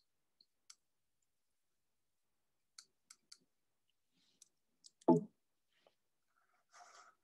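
Scattered faint clicks, with one louder knock about five seconds in and a short faint rustle near the end.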